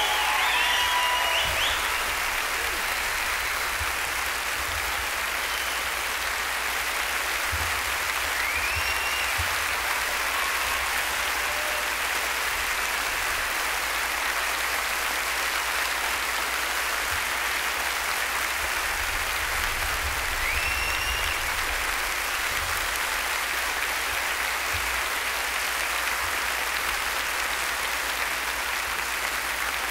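Audience applauding steadily, with two short rising whistles heard over the clapping, one about eight seconds in and one about twenty seconds in.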